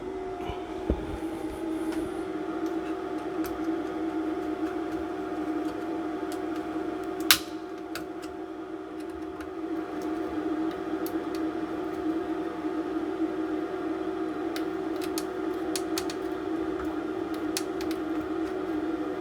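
Desoldering equipment running with a steady motor hum, with a single sharp click about seven seconds in, as a chip is being desoldered from a circuit board.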